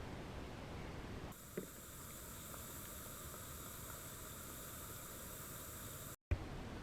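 Faint steady hiss of background noise, changing abruptly about a second in and cutting out to silence for a moment near the end.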